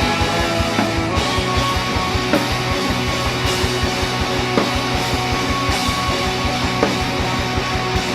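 Live rock band of electric guitar, bass guitar and drums playing a song with a fast, steady beat.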